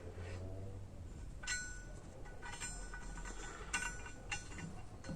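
Light metallic clinks, about four, with a short ring after each, as small metal parts of a transmission valve body are handled and set in place.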